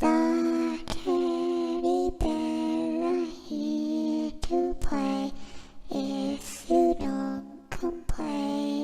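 A sing-song voice slowly singing a lullaby-like tune in long held notes with short breaks between phrases, with a few sharp clicks in between, used as an eerie horror sound effect.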